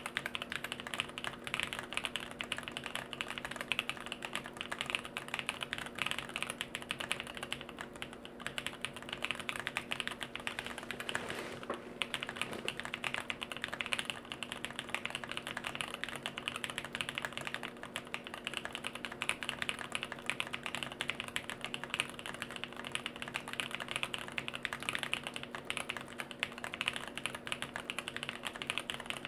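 Continuous typing on a jLabs JP-02 custom mechanical keyboard with an FR4 plate, no foam, Bolsa Supply Corsa switches, Durock V2 stabilizers and KBDFans Neon keycaps: a steady stream of quick keystrokes, with a faint steady hum underneath.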